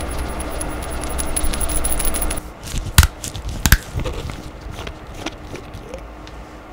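Red plastic screw cap of a small glass reagent bottle being twisted open close to the microphone: two loud sharp clicks about three-quarters of a second apart, then fainter clicks and scrapes. A steady ticking background stops just before the clicks.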